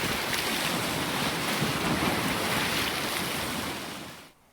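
Waves washing on a shore with wind buffeting the microphone, a steady rushing noise that fades out near the end.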